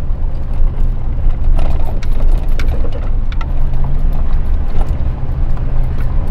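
Cabin noise of a pickup truck driving a bumpy washboard road: a heavy, steady low rumble from the tyres and engine, with scattered light rattles and clicks.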